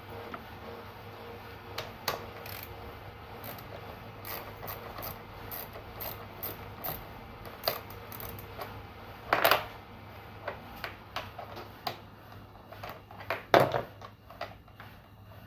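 Irregular clicks, taps and small metallic knocks of hand tools and parts being handled during washing-machine disassembly, with two louder knocks about nine and a half and thirteen and a half seconds in.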